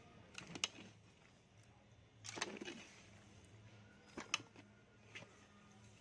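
Metal ladle stirring masala-coated fish pieces in a large metal pot: short scrapes and clinks of the ladle against the pot, a longer scrape about two seconds in, over a faint steady low hum.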